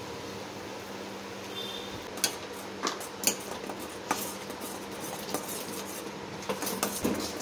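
A steel spoon clinking and scraping against a stainless steel pan while stirring porridge: sharp, irregular clinks begin about two seconds in, over a steady low hum.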